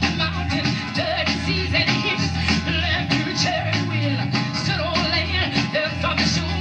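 Gospel vocal group singing with band accompaniment, performed live.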